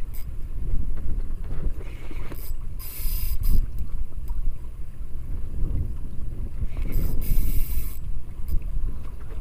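A small spinning fishing reel being cranked as a micro jig is worked, in two spells, about two seconds in and about seven seconds in, over a steady low rumble of wind on the microphone and water around the boat.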